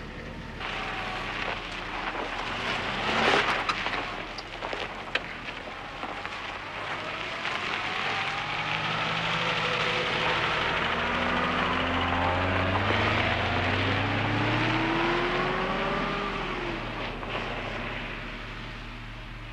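A car driving on a gravel road, with tyre and road noise. Its engine note rises in pitch as it accelerates, then fades as the car drives off near the end.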